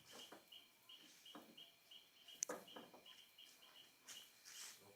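Near silence with a cricket chirping faintly and steadily, several short chirps a second at one pitch. There is a single sharp click about two and a half seconds in.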